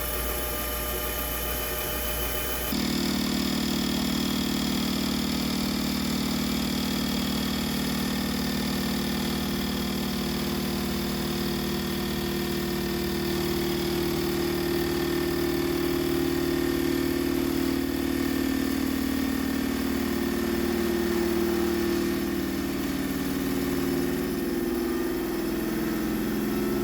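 Mini lathe running while a hand drill drives its cross feed through a light cut of about ten thousandths of an inch in a metal tool holder. A louder steady motor drone from the drill comes in about three seconds in and holds, sagging slightly in pitch and shifting near the end.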